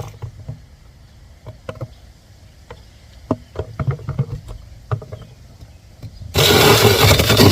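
Scattered light clicks and knocks, then about six seconds in a small 21-volt cordless chainsaw starts suddenly and runs loudly.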